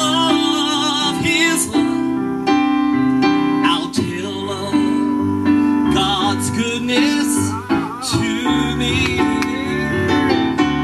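Gospel music: an electric keyboard playing held chords under a singer's voice with wide vibrato.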